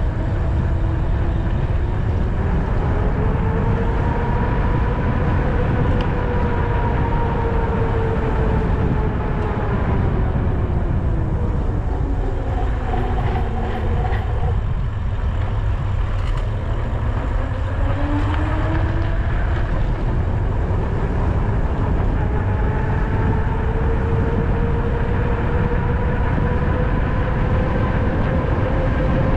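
Electric bike motor whining, its pitch following the bike's speed: it rises, drops to its lowest about halfway through as the bike slows for a turn, then climbs steadily as it speeds up again. A heavy low rumble of wind on the helmet- or bike-mounted camera's microphone runs underneath.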